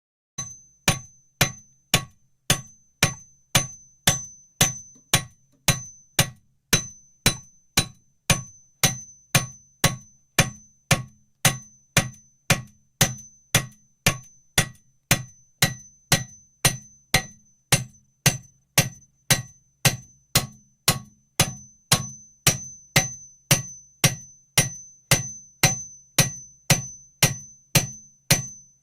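Hammer blows at a steady pace of about two a second, each strike a low thud with a high metallic ring after it.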